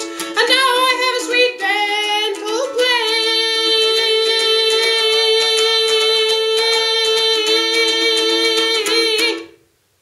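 A voice singing to a strummed ukulele, ending the line on one long held note with the ukulele strumming along; both stop suddenly near the end.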